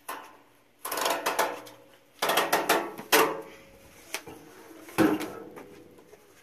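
Metal hood of a Blackstone griddle being handled on its hinges: bursts of metallic clatter and rattling, then one sharp clank about five seconds in as the lid is shut.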